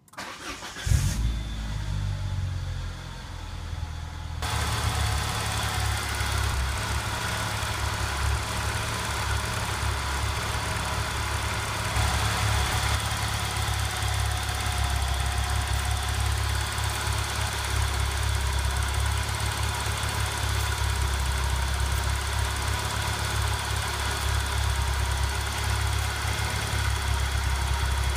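Peugeot 406 engine starting about a second in and then idling steadily in the open engine bay, run to bleed trapped air from the freshly flushed cooling system.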